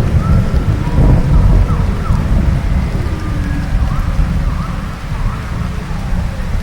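Dinosaur creature sound effect for a Pachyrhinosaurus: a deep, rough rumble, loudest about a second in and easing off toward the end, with short chirping pitch glides over it.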